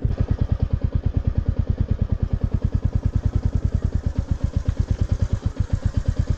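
Motorcycle engine running at low speed with a rapid, even pulsing beat, the bike being ridden over a rutted dirt track.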